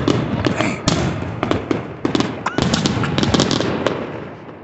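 Aerial fireworks bursting overhead in a dense run of sharp pops and crackles, dying down near the end.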